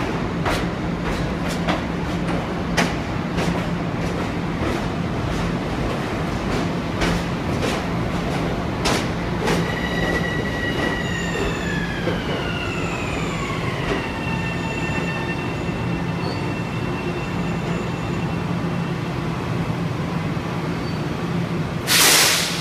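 Metro-North M7A electric train pulling into a terminal platform and slowing to a stop. Its wheels click over rail joints for the first nine seconds or so, then a whine falls in pitch as it slows and settles on a steady tone, over a constant low hum. A short, loud hiss comes near the end.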